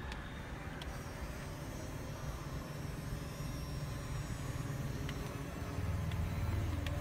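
The electric drive motors and gears of a remote-control CAT 320D long-reach excavator model running as its upper body swings round, a steady low hum that grows louder near the end, with a few faint clicks.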